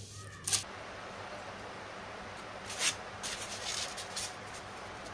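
Polystyrene foam (thermocol) wing section being handled: a few short rustling scrapes over a steady hiss. A low hum stops about half a second in.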